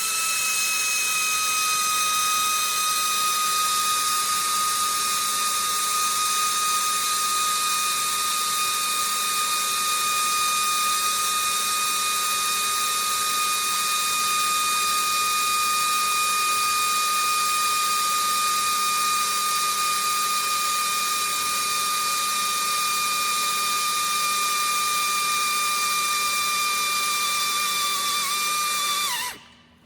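Electric drill running steadily with a high whine while boring holes through cable ends, its pitch sagging slightly under load; it winds down and stops near the end.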